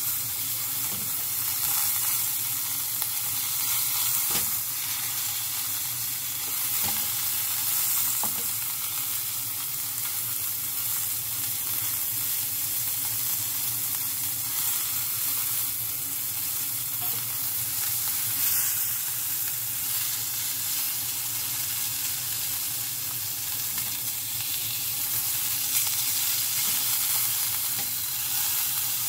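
Beef round searing in olive oil in a hot frying pan: a steady sizzle with a few small pops.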